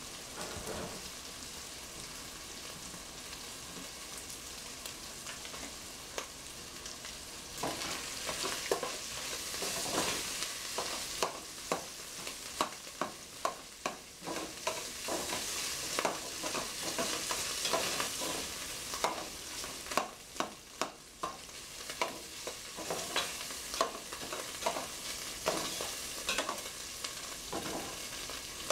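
Crumbled sausage sizzling as it browns in a stainless steel stockpot. After several seconds a utensil starts stirring it, scraping and clicking irregularly against the pot.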